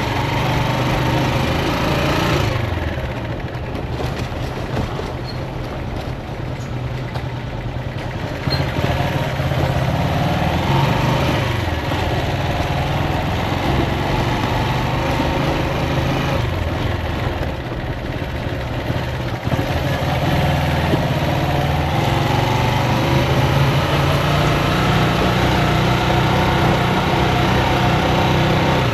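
Motorcycle engine running while riding. The engine note falls away twice, a few seconds in and again about halfway through, and climbs back after each.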